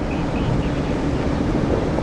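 Container ship WAN HAI 288 passing: a steady low rumble with a faint engine hum, mixed with the wash of its wake and wind on the microphone.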